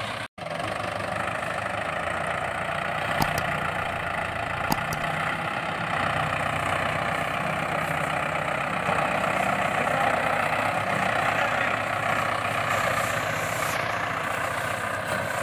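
A motor running steadily, with a very brief cut just after the start and two faint clicks a few seconds in.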